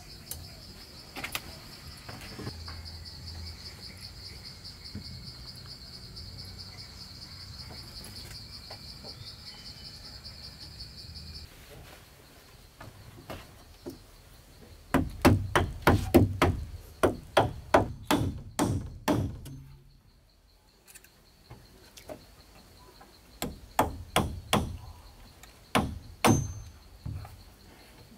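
Insects chirr steadily in a high, fast-pulsing drone until it stops abruptly about eleven seconds in. Then come two runs of sharp blows of a tool on wood as the shelter is built: about a dozen quick strikes at roughly three a second, a pause, then half a dozen more near the end.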